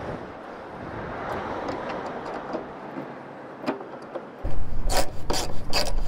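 Screwdriver scraping and turning a screw in a side-mirror mount on a car door. About four and a half seconds in, the sound gets louder, with a low rumble and a run of sharp clicks and knocks as the mirror and screws are handled.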